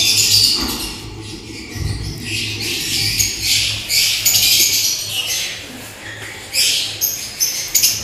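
Many caged lovebirds chattering and squawking in a breeding room: harsh, high calls in overlapping bursts that come and go, with a faint low hum underneath.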